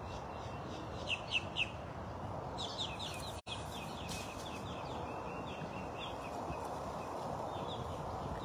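Wild songbird chirping in quick runs of short, high, falling notes, three louder ones about a second in, over a steady outdoor background hiss. The sound cuts out for an instant a little before the middle.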